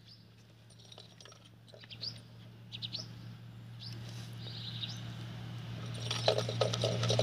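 A bird chirping: a handful of short, quick, falling chirps. About six seconds in, a rapid clicking rattle starts up, over a low steady hum.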